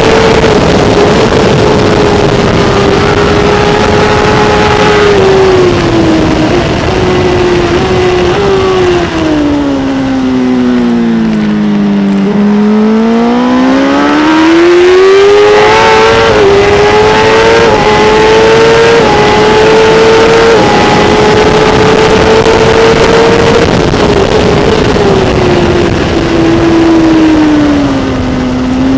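Kawasaki ZX-10R superbike's inline-four engine at racing speed, heard from a camera mounted on the bike. The engine note holds high, sinks smoothly to its lowest about twelve seconds in as the bike goes through a bend, then climbs back up in steps under acceleration and falls again near the end.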